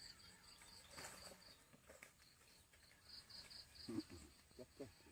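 Faint insects chirping in a steady pulsing rhythm, with a thin high continuous whine behind them and a few short low calls near the end.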